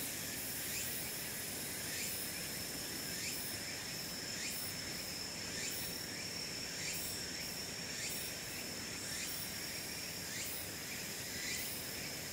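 Insect chorus: a steady high trill, with short rising chirps about twice a second and a higher hissing buzz that pulses on and off.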